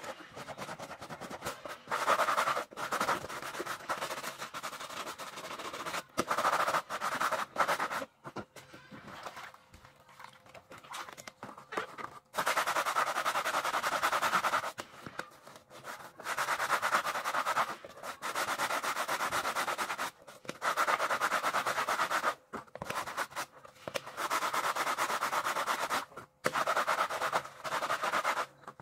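Stiff scrub brush scrubbing a soapy knit fabric sneaker, bristles rasping in rapid back-and-forth strokes. It comes in spells of one to three seconds with short breaks between.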